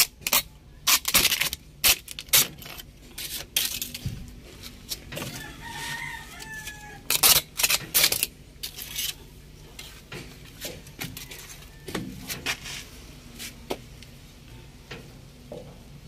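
Crinkly plastic protective sheet being peeled and torn off the top of a new truck battery, a run of loud crackling rustles that thin out after about nine seconds.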